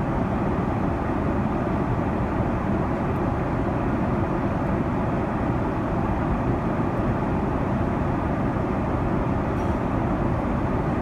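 Steady cabin roar of a Boeing 777 airliner in flight: engine and airflow noise, even and unbroken.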